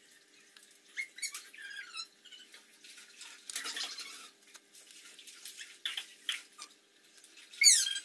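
A metal screwdriver tip scraping and squeaking against the inside of a washing machine's plastic gearbox housing, digging out greasy dirt in short, irregular strokes. A loud, sharp squeak that falls in pitch comes near the end.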